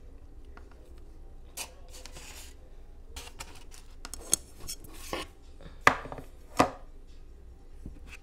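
Cutlery tapping and scraping against plates in a series of sharp clicks, the loudest two close together about six seconds in, mixed with the brief swish of a paper plate being handled.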